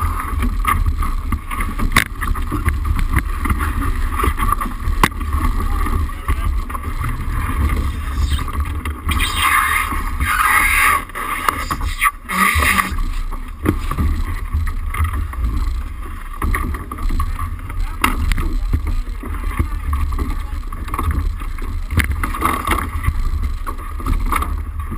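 Wind buffeting the camera's microphone and water rushing along the hull of a small keelboat under sail, steady throughout with a louder rushing burst about halfway through. Crew voices call out now and then.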